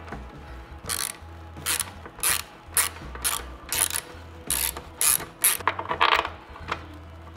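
Hand ratchet tightening a bolt through a polyurethane subframe bushing. About ten back-and-forth strokes at roughly two a second, each back-swing a short clicking rasp of the pawl, stopping about six seconds in.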